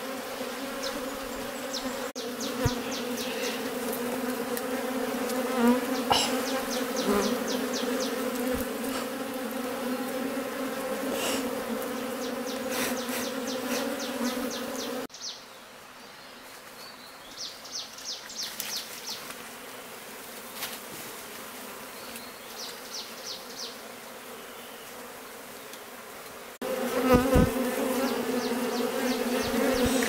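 A colony of wild honey bees buzzing as a steady, dense hum while their nest in a rock crevice is opened by hand. The hum grows fainter through the middle and is loud again near the end.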